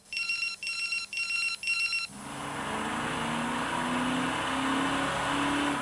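Four short electronic beeps in a row, each made of several clear tones. Then a car is driving, its engine note climbing in steps as it shifts up through the gears over the road noise.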